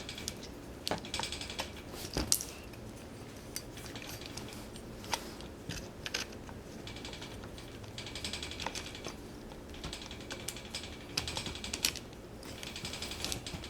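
Hand tools and metal parts clicking and knocking while a wheelchair wheel's hub is worked on to take it apart, with a few stretches of rapid, even clicking.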